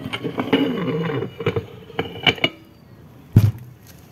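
The oil pump of a TH350 automatic transmission being drawn out of the transmission case: a short metallic scraping rub, a few light ringing metal clinks, then a heavier knock about three seconds in as the pump is set down.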